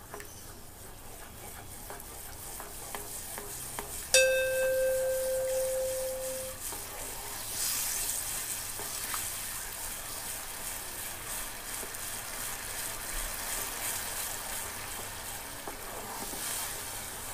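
A spatula stirs caramel that is bubbling and sizzling in a nonstick pan, and the sizzle grows louder and brighter from about eight seconds in. About four seconds in, a single metal clang rings out and fades over about two seconds.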